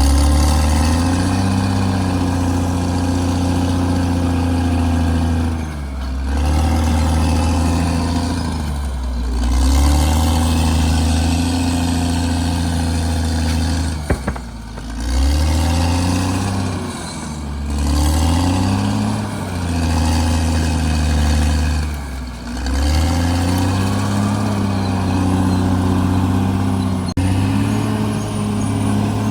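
CAT D6R XL bulldozer's diesel engine running hard under load. Its pitch sags and picks back up about six times as the load comes on and eases. A couple of sharp knocks sound about halfway through.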